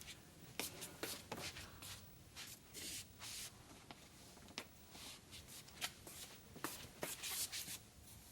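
Faint rustling and handling noise with scattered light clicks and taps.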